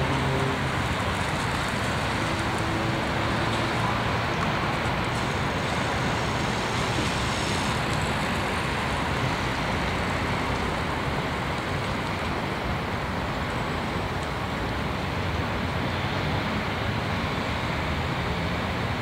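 Steady road traffic noise: an even rumble and hiss with no distinct events.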